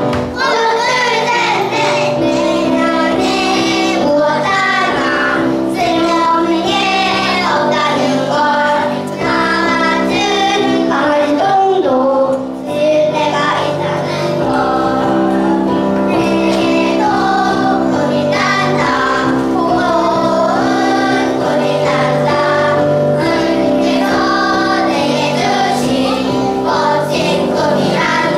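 Young children singing a song, one voice through a microphone with the class joining in, over instrumental accompaniment.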